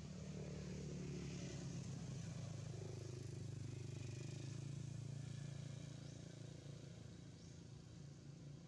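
Faint, steady low hum of an engine, a little louder for about the first six seconds, then easing off.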